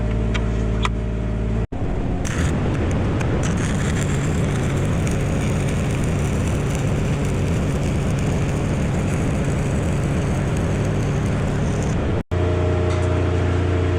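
Stick-welding arc crackling steadily for about ten seconds while a root pass is laid on a D-ring on a steel loader bucket. An engine drones steadily under it, and the engine alone is heard before the arc starts and after it stops.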